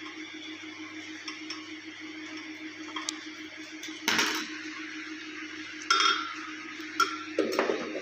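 Metal clinks and knocks as hands work the screws and mounting of a washing machine's wash motor: a few sharp strikes, one of them ringing, over a steady low hum.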